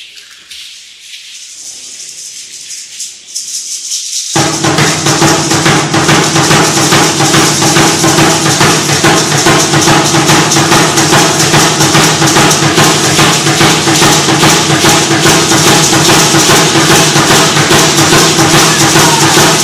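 Aztec dancers' rattles shaking, growing louder, until about four seconds in a tall upright huehuetl drum comes in with a fast steady beat, drum and rattles then going together at full level.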